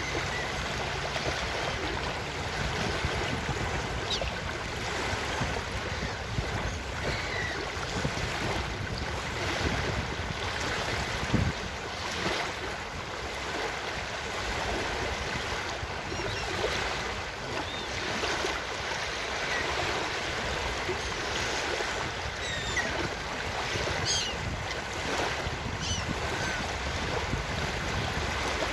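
Ocean surf washing steadily onto a beach, with short, faint seagull calls now and then and a brief thump a little before the middle.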